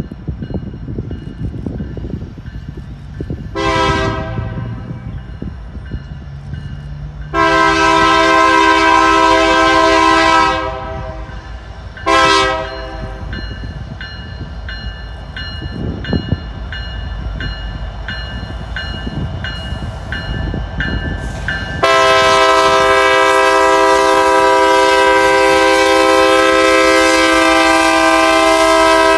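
Diesel locomotive horn on Canadian Pacific heritage unit SD70ACu 7019, sounding the grade-crossing pattern: a brief blast, a longer one of about three seconds, a short one, then a long blast held about eight seconds. Beneath the horn runs the low rumble of the locomotive and the train rolling slowly on the rails.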